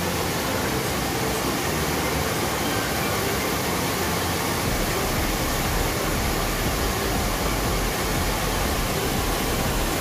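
Steady rush of a mountain stream tumbling over rocks and small falls, an even, loud hiss of water.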